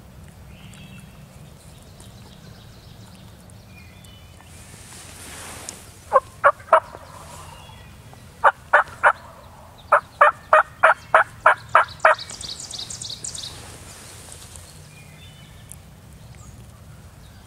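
Wild turkey calling: three loud, sharp notes, then three more, then a run of about eight evenly spaced notes at roughly three a second. A quick run of higher, thinner notes follows just after.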